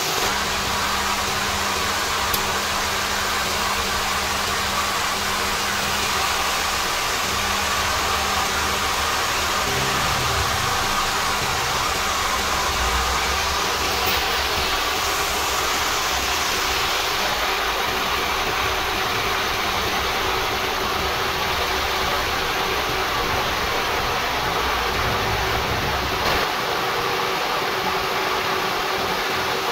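Gear-cutting machine running steadily as a cutter on a horizontal arbor cuts spur-gear teeth into a steel blank under a drip of cutting oil: an even mechanical noise with a faint hum and a low rumble that thins out near the end.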